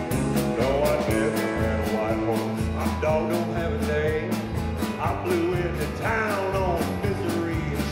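Live country-rock band playing: strummed acoustic guitar, electric guitar, electric bass and a drum kit keeping a steady beat, with a man singing the lead.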